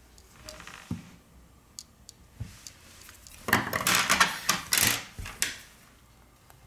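Small hard objects being handled on a workbench: a few scattered clicks, then about two seconds of dense clattering and scraping.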